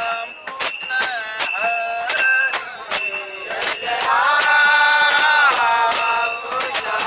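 Passengers singing a devotional chant-like song, with one long held note in the middle, over sharp jingling metal percussion struck about twice a second.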